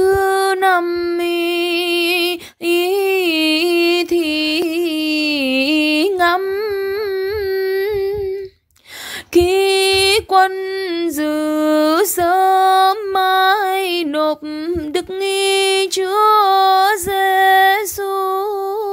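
A woman chants a Vietnamese Catholic ngắm đứng (Passion meditation chant) solo and unaccompanied. She holds long notes with ornamented turns, with short breaks between phrases.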